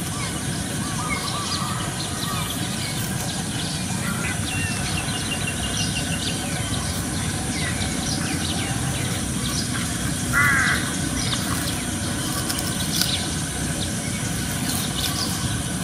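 Birds calling outdoors: many short chirps throughout over a steady background hiss, with one louder call about ten and a half seconds in.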